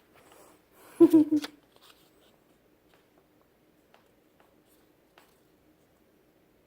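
A brief vocal sound about a second in, then faint scattered clicks and light rustles of hands handling a bag of wool fibre, over a low steady room hum.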